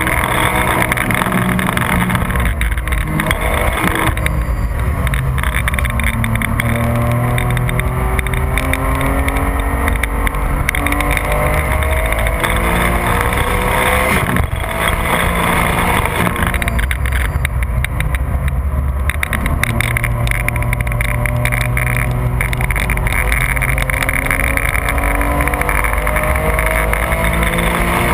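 2004 Porsche 996 GT3's 3.6-litre flat-six accelerating hard, its note rising in long pulls through the gears with brief breaks at the gear changes, about four and fourteen seconds in. Heard from inside the cabin.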